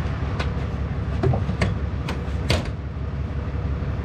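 Knocks and clatter of things being handled in a metal trailer-tongue toolbox, with the loudest knock about two and a half seconds in, over a steady low rumble.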